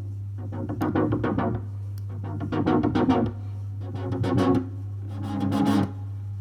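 Synthesizer patch built in Serum from detuned unison saw waves playing: four phrases of rapid repeated chord stabs, each swelling louder and brighter for about a second before cutting off, over a steady low drone.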